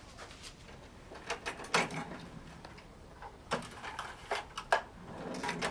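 A few scattered light knocks and clicks, irregularly spaced, over quiet indoor room tone.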